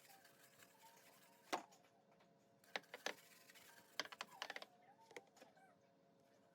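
A few light, sharp clicks and taps, with a quick run of them about four seconds in, over a faint steady hum.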